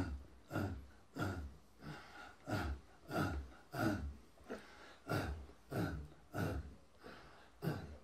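Rhythmic breathing: short, breathy gasps repeating evenly, about three every two seconds.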